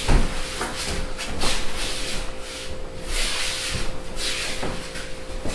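Bare feet shuffling and scuffing on a judo mat, with the rustle of heavy cotton judo gi, as two judoka move around and take grips; a single dull thump right at the start.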